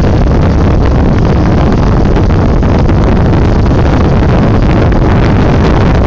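Heavy wind buffeting a phone's microphone as the camera moves down the snow slope: a loud, steady rush with a deep rumble.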